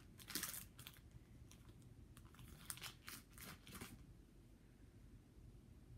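Foil wrapper of a Pokémon trading card booster pack crinkling and tearing as it is opened, in a series of short bursts over the first four seconds.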